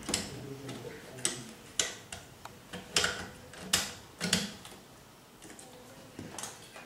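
Irregular clicks and knocks from test gear being handled on a bench, about seven sharp ones spaced unevenly, most in the first four seconds.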